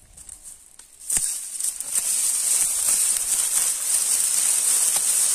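Dry silage-corn stalks and leaves rustling steadily as they are gathered and cut by hand with a sickle, with a sharp snap about a second in.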